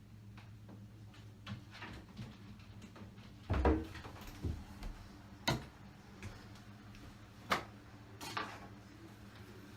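A few scattered knocks and sharp clicks over a steady low hum, the loudest a thump about three and a half seconds in.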